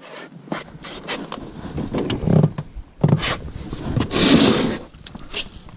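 Handling noise from a clear plastic tackle box on the floor of a small boat: a string of sharp knocks and clicks with scraping as it is opened and rummaged through, the loudest scrape a little past four seconds in.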